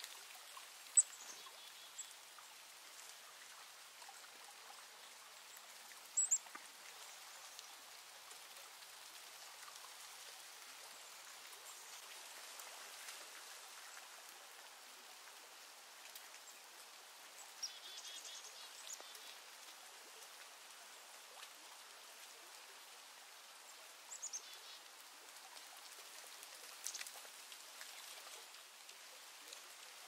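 Faint outdoor ambience: a steady soft hiss with a few short, sharp, high-pitched ticks scattered through, the loudest about a second in and about six seconds in.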